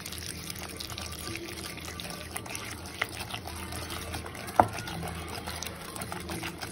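Whisking a wet batter of curd, powdered sugar and melted butter in a bowl: steady wet squelching with light clicks of the whisk against the bowl, and one sharper clink about four and a half seconds in.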